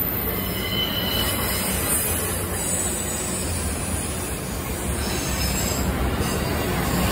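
Autorack freight cars rolling past on curved track: a steady rumble of steel wheels on the rails, with thin high wheel squeal now and then as the wheels grind through the curve.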